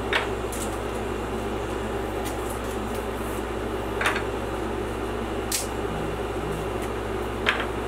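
Steady machine hum, like a fan or blower running in a workshop, with four light wooden clacks as carved wooden hold-down pieces are pulled free of their board and handled.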